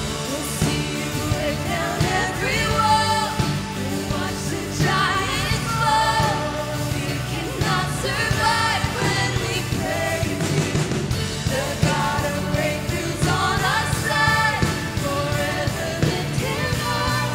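Worship band playing a song with voices singing the melody over sustained bass.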